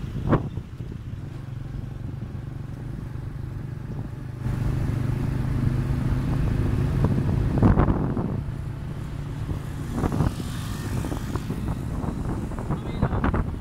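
A small motorbike engine running steadily while riding, which gets louder about four and a half seconds in, with a few brief thumps from wind or bumps on the microphone.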